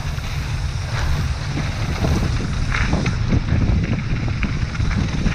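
Mountain bike descending a dirt trail: wind buffeting the microphone over a steady low rumble of tyres on the ground, with frequent small clicks and rattles from the bike over bumps.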